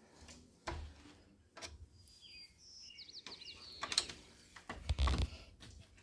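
Metal clicks, scrapes and knocks of a screwdriver and paper clip working at a car's ignition lock cylinder, trying to turn it and press in its release pin; the loudest knocks come about four and five seconds in. A bird chirps briefly around the middle.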